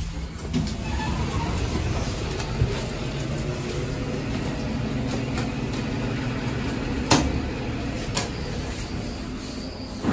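Hydraulic elevator car in motion, with a steady low rumble. Sharp knocks come about seven and eight seconds in, with a thump near the end, as the car shakes.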